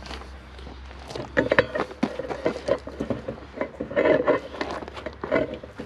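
Steel winch cable being handled and bent by gloved hands against a steel forklift fork while a knot is tied in it: a string of clicks, scrapes and metallic clinks, starting about a second in.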